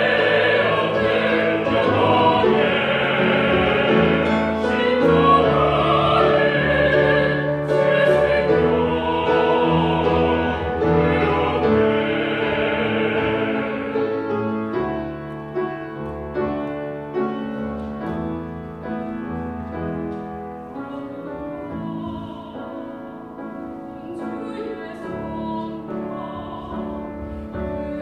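A mixed vocal ensemble of trained classical voices singing a hymn in operatic style with piano accompaniment. The music is full and loud for the first half, then drops back about halfway and goes on more softly.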